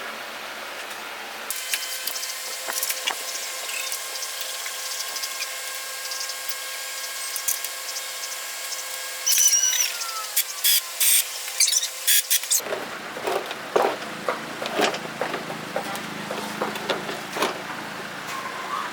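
Workshop tool work: a small power tool runs with a steady whine for about eleven seconds, with sharp clicks near the end as its pitch drops. It then gives way abruptly to a run of clicks and knocks from handling tools and parts.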